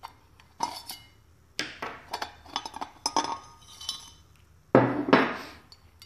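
Metal clinks and scrapes of a ceiling fan motor being taken apart with a screwdriver, with short metallic rings. A louder clatter near the end comes as the steel case is pulled off the copper-wound stator.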